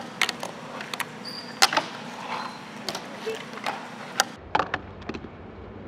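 Fingerboard clacking on a wooden ramp: many sharp clicks of the board's tail and wheels striking the wood, coming irregularly throughout.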